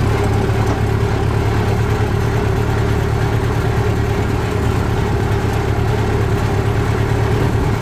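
Farm tractor's diesel engine running steadily at a constant throttle while the tractor drives along a dirt road, heard from the driver's seat.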